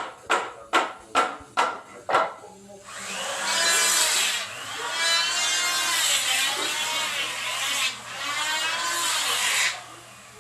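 Saw cutting wood: quick short strokes at first, then from about three seconds in a louder, steadier run of sawing that swells and dips for several seconds and stops near the end.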